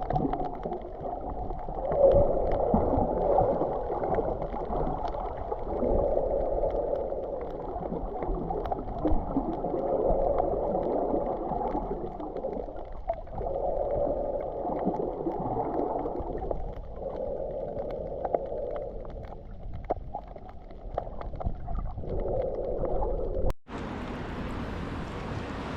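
Muffled underwater sound of moving water, swelling and fading every few seconds, as heard by a camera held underwater while snorkeling. Near the end it cuts off suddenly to a steady open-air hiss.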